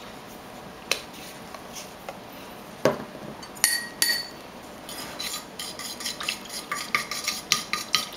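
A metal fork clinking against a ceramic bowl: a few separate clinks, then from about five seconds in, fast repeated tapping and scraping as it stirs paint into foamy bubble solution.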